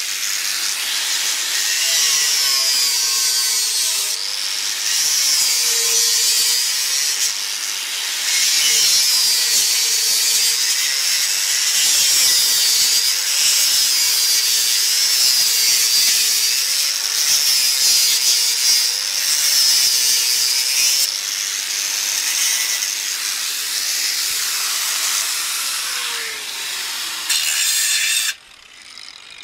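Angle grinder with a cutting disc slicing through a hollow clay brick: a loud, gritty hiss over a motor whine that wavers up and down in pitch as the disc bites into the cut. Near the end the whine falls away and the grinder cuts off suddenly.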